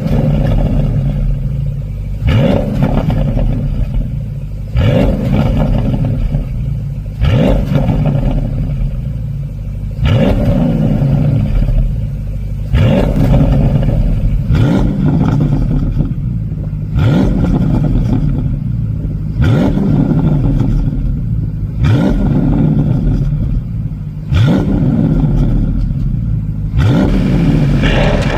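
Porsche 971 Panamera GTS twin-turbo V8 with its exhaust flaps open, revved about a dozen times in quick blips, one every two and a half seconds or so. Each blip rises sharply and falls back with pops and crackles from a pop-and-crackle exhaust tune.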